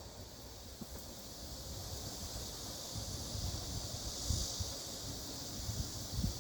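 Outdoor ambience: wind rumbling on the microphone with a few soft knocks, over a steady high hiss.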